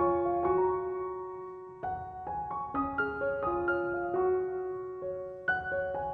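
Background piano music: a gentle melody of single sustained notes that repeats its phrase about every two and a half seconds.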